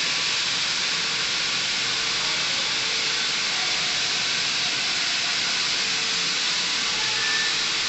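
Ceiling fire sprinklers discharging water, a steady hiss of dense spray that holds at the same level throughout.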